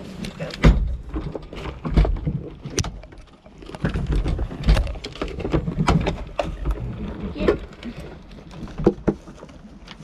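Goats nuzzling and bumping against the camera: irregular thumps and rubbing right at the microphone, the strongest about a second, two seconds and nearly five seconds in, among scattered clicks and rustles.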